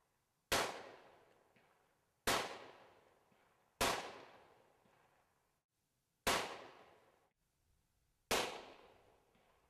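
Five gunshots from a Taurus Judge revolver, fired one at a time at uneven intervals. Each shot is a sharp crack that rings out and fades over about a second.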